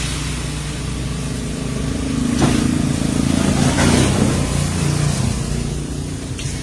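A steady low motor hum that swells and grows rougher for a few seconds midway, then eases back.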